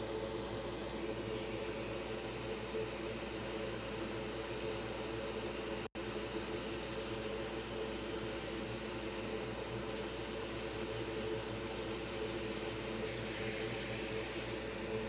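Small electric blower running steadily, a hum with an airy hiss, with a momentary dropout about six seconds in.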